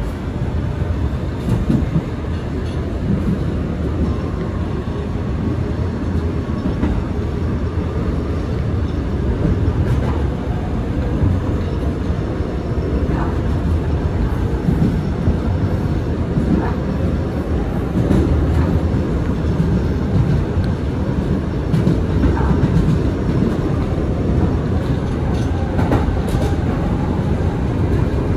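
A Kawasaki R211A subway train running between stations, heard from inside the car: a steady rumble with wheels clicking over rail joints.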